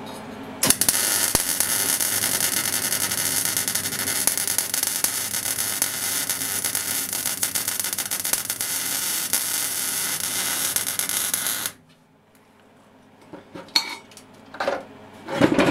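MIG welder arc burning on steel tube: a steady, dense crackling hiss that starts suddenly about half a second in and cuts off suddenly near the end, where a few sharp metal knocks follow. The welder puts the weld's behaviour down to a bad connection.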